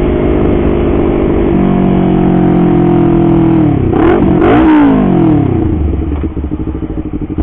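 Honda CBR250RR parallel-twin engine through an R9 aftermarket exhaust, loud enough to drown out the rider's voice. It runs steadily, drops in pitch about one and a half seconds in, swoops down and back up around four to five seconds in, then falls to a low, pulsing idle near the end.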